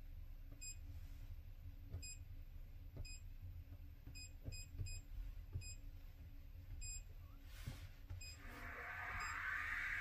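All-in-one solar inverter running under light load: a faint low electrical hum with several short, high electronic chirps at uneven intervals. Near the end its cooling fan speeds up into a steady rush of air.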